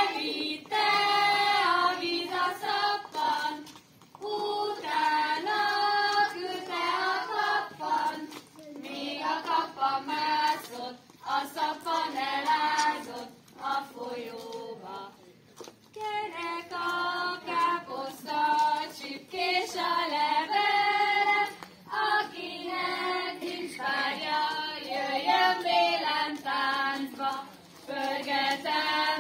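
A group of girls and women singing a Hungarian folk song unaccompanied, in phrases of a few seconds with short breaths between them.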